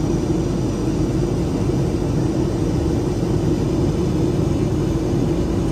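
Steady rumbling drone of a jet airliner in flight, heard inside the passenger cabin: engine and airflow noise with no change in pitch.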